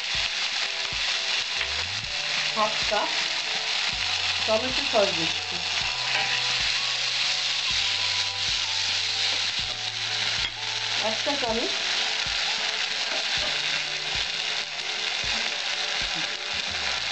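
Chopped onion and capsicum sizzling steadily in hot oil in an aluminium kadai, stirred with a wooden spatula.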